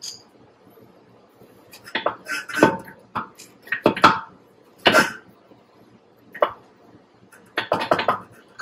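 A run of irregular metallic clinks and knocks as hub bushings are worked loose by hand from a tracked slope mower's drive hub.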